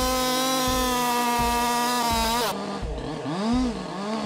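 Chainsaw engine held at full throttle with a steady high whine, then let off about two and a half seconds in and revved up and down in short blips.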